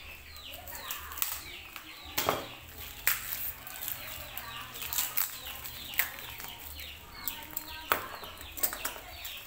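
Plastic packaging crinkling and small metal case locks clicking as they are unwrapped and handled, in a series of sharp clicks. Birds chirp over and over in the background in short falling notes.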